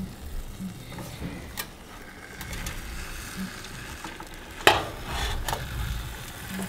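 Raw shark pieces being set and pushed into a frying pan of oil: a light sizzle with a few sharp knocks against the pan, the loudest just under five seconds in.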